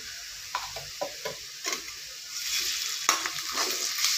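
A metal spoon scraping and clinking against an aluminium kadai while stirring shallots and ginger-garlic paste frying in oil. A few separate scrapes come first, then the sizzle grows louder about halfway through.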